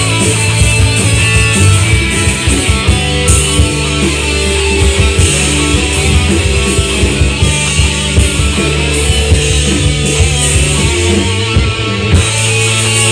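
Instrumental prog hard rock improv jam by a band, led by electric guitar.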